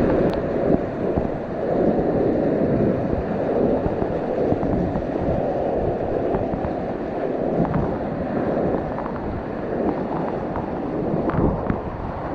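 Whitewater rapids rushing steadily around a kayak on a grade 3–4 river, a dense, deep-sounding rush of churning water.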